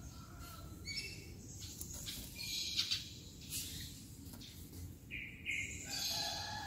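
White-rumped shama (murai batu) singing a varied string of short whistled and trilled phrases, high and clear, with a lower warbled phrase near the end.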